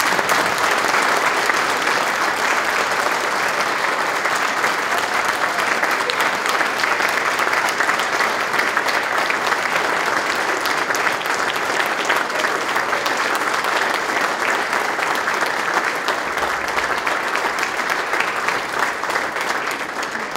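Crowd applauding: dense, steady clapping from many hands that thins a little near the end.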